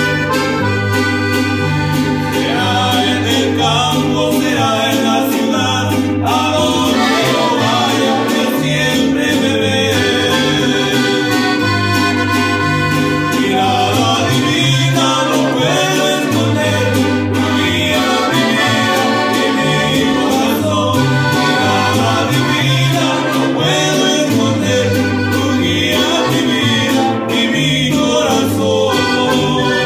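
Live accordion, upright bass and a small strummed guitar playing a Mexican-style conjunto song, with a man singing lead over them. The bass plays a steady alternating line under the accordion.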